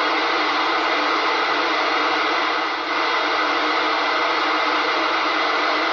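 Steady radio static hiss from a Raddy RF757 receiver's speaker, tuned to narrowband FM on the UK 27 MHz CB band, with no intelligible voice in it. It dips briefly near the middle.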